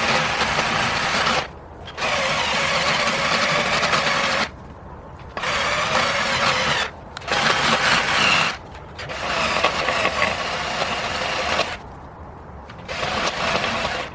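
Electric drill spinning a rotary grinding bit against the rim of an aluminum wheel, grinding down curb rash. It runs in six bursts of one to three seconds, each stopping and starting again after a short pause.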